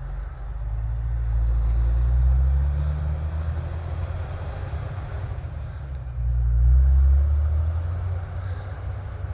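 Loaded log truck's diesel engine labouring up a steep grade. The engine note rises about a second in and swells louder again around seven seconds.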